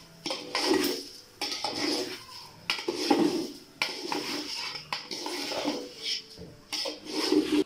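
Long metal spatula scraping and clinking against the inside of a large aluminium cooking pot in repeated, irregular strokes, stirring rice as it fries in oil so it does not stick to the bottom.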